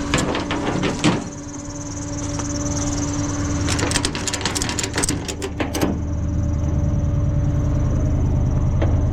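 Chevrolet Silverado pickup engine running with a steady whine from a squealing drive belt. There are bursts of sharp clicks and rattles near the start and again in the middle, and a louder, pulsing low engine drone from about six seconds in.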